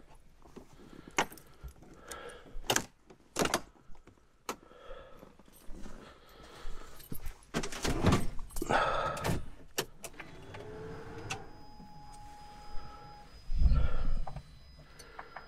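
Keys jangling with clicks and knocks as someone settles into a Can-Am Defender UTV's cab and handles its controls. About eleven seconds in, the ignition comes on and a steady electronic tone sounds for about two seconds. It is followed by a short, loud, low thump; the engine is not yet running.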